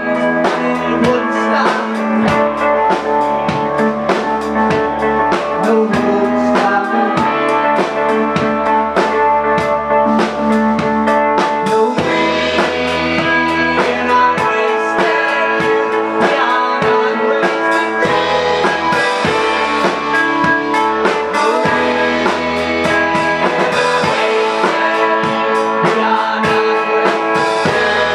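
Live band music: an electric guitar played over a drum kit, loud and steady, with the drums keeping a beat. The sound turns fuller and brighter about twelve seconds in.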